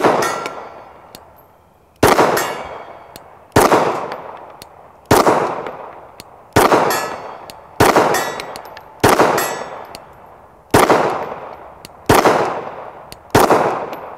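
Gen 3 Glock 19 9mm pistol firing ten slow, aimed shots, one every second and a half or so. Each crack echoes and dies away before the next.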